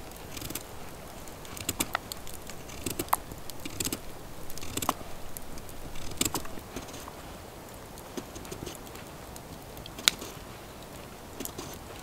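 A knife slicing thin rounds off a carrot held in the hand, each cut a crisp snap, with the slices dropping into a metal pot. The snaps come at an irregular pace, one every second or so.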